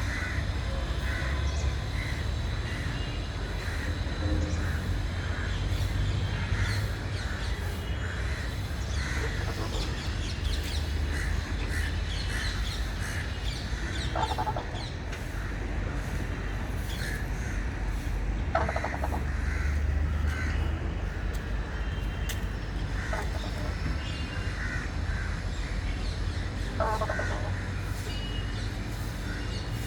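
Aviary birds calling throughout with many short, repeated calls. Three louder calls stand out, in the middle, a few seconds later, and near the end. A steady low rumble runs underneath.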